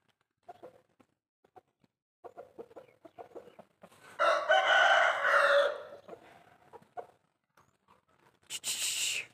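A rooster crows once, about four seconds in, for just under two seconds. Scattered soft taps and clicks come before the crow, and a short rustling burst near the end.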